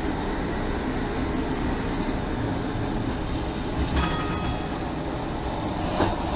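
Tram running along street track, heard from inside the driver's cab: a steady rumble of running gear and wheels on rail. A brief high metallic ringing comes in about four seconds in.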